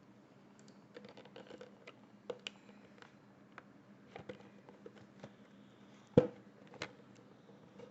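Fingers working at a sealed cardboard processor box and its seal: scattered small clicks, scratches and taps, with one sharper knock about six seconds in and a lighter one just after.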